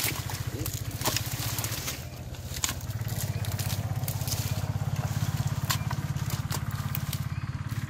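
Hands pulling through water hyacinth stems and wet mud, making scattered crackles, snaps and scrapes, over a steady low pulsing motor drone.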